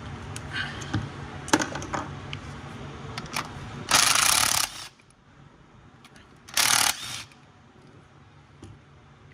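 Ratchet with a T30 Torx bit working the bolts, with metal clicks and knocks of the tool, then two short bursts of fast ratcheting, about four and six and a half seconds in.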